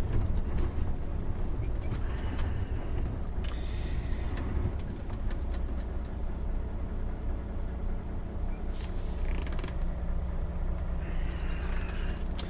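Inside a truck cab: the diesel engine runs steadily as a low hum, with small creaks and clicks from the cab.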